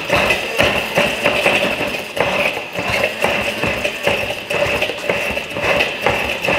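Hand-held immersion blender running steadily with a high whine, working chutney into thick homemade vegan mayonnaise in a tall beaker, with frequent knocks and clatter against the beaker as the blender head is moved about.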